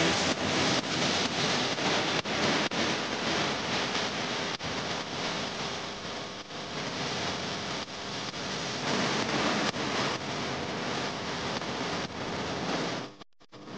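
Steady rushing noise that cuts off abruptly shortly before the end.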